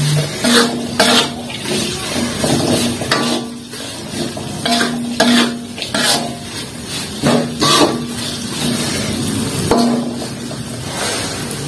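Metal spatula scraping and stirring anchovies and spice paste around an aluminium wok, in irregular strokes about once a second.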